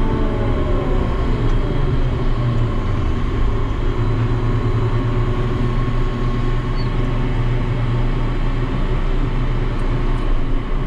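A 2004-built ship's deck crane, worked by mechanical levers, running as heard from its operator's cab: a loud, steady low hum and drone of the crane machinery. In the first second or so a whine falls in pitch.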